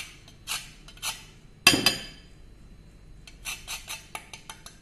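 Whole nutmeg rasped against a flat stainless-steel hand grater: a few slow scraping strokes, then a quick run of short strokes near the end. Nearly two seconds in, one loud ringing clink of metal on the glass bowl.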